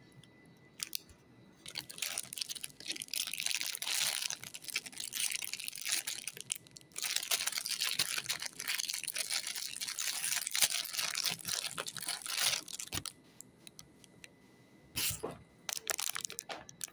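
Clear plastic wrapper crinkling and crackling as it is handled and pulled open. It comes in dense stretches from about two seconds in to about thirteen seconds, with a brief pause around seven seconds, then only a few scattered crinkles and clicks near the end.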